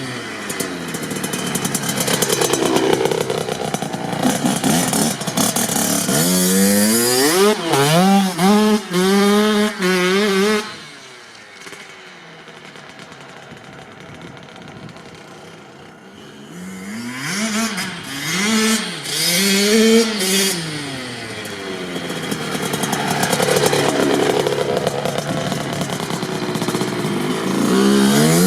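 Kawasaki KX65's small single-cylinder two-stroke engine being ridden hard, its revs climbing and dropping again and again through the gears. Near the middle the sound fades away for several seconds as the bike moves off, then builds back up as it returns, revving hard again.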